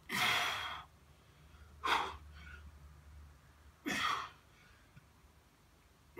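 A man breathing hard through push-ups: three heavy breaths about two seconds apart, one with each push-up.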